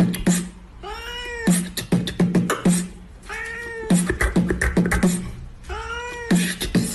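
Beatbox rhythm built around meow sounds: a drawn-out meow-like call, then a quick run of clicks and low kick-drum thumps, the pattern repeating about every two and a half seconds.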